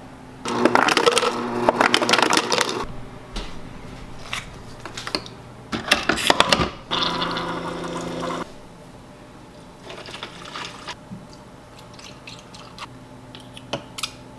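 A person gulping down a glass of drink in quick swallows, then clicks and the steady hum of a single-serve coffee maker brewing, followed by a quieter stretch of small handling ticks.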